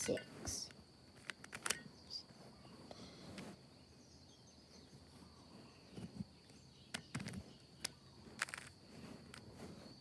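Plastic Rubik's cube being turned and handled: scattered short clicks and clacks of the layers, over a faint steady high-pitched tone.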